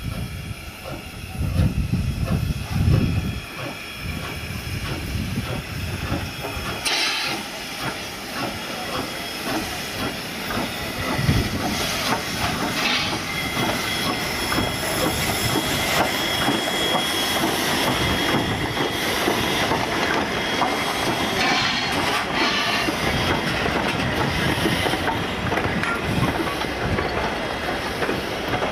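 W class 4-8-2 steam locomotive W934 passing close, hauling carriages: heavy exhaust beats and steam hiss as it comes up, with short hiss bursts. The steady running noise of wheels and coaches builds through the second half, with a thin steady squeal in it.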